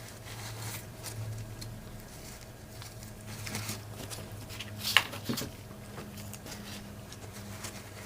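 Faint scratching and light clicks from cleaning and handling the parts of a disassembled half-inch Craftsman ratchet, with one sharper click about five seconds in. A steady low hum runs underneath.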